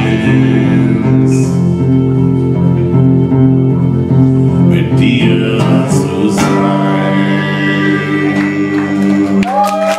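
Live acoustic guitar song at its close: guitar with long held notes over it, the music stopping about nine and a half seconds in. The first claps of applause come right at the end.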